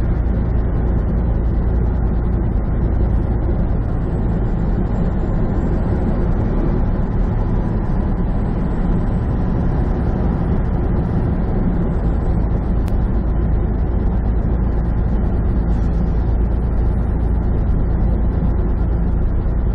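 Steady drone of a semi truck heard from inside its cab while cruising on the highway: diesel engine and tyre and road noise.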